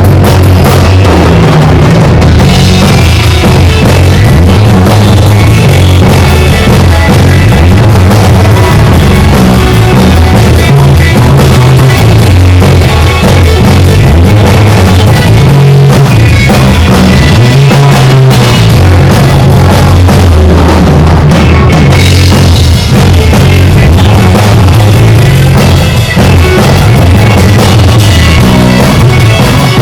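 Loud rock music from a band playing live, with a drum kit and electric guitar.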